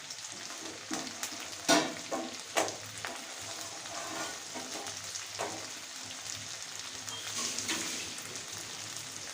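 Onion and capsicum sizzling steadily in hot oil in a pan. A spatula stirs and knocks against the pan a few times, most sharply about a second and a half to two and a half seconds in.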